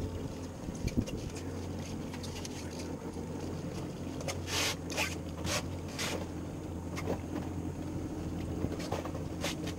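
Steady low hum aboard a small fishing boat, with wind and water noise. A few short hissing bursts come about halfway through.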